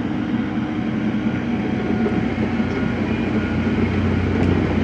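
A heavy engine running steadily: a constant low mechanical rumble with a faint higher whine over it.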